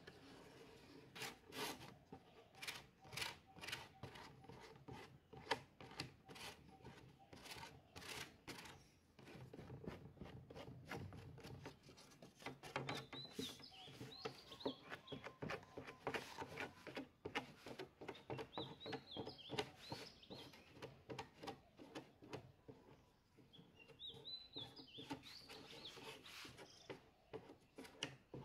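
A flat spreader scraping and rubbing wet wood glue across a plywood panel in quick repeated strokes. A bird chirps faintly in the background now and then.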